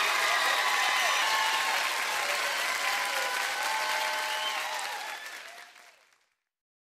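Audience applauding, with scattered voices calling out over it, fading out to silence about six seconds in.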